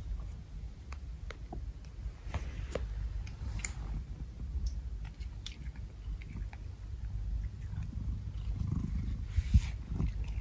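A cat chewing, with irregular crisp clicks over a steady low rumble and one louder thump near the end.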